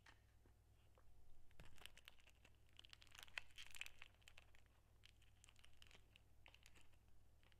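Gold foil and clear film sweet wrapper crinkling under the fingers as it is peeled back from a Werther's Original cream caramel. It is faint, with a burst of dense crinkling from about a second and a half in to about four seconds, then scattered light crackles.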